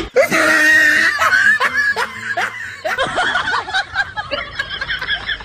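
Dubbed-in laughter sound effect: people laughing and snickering.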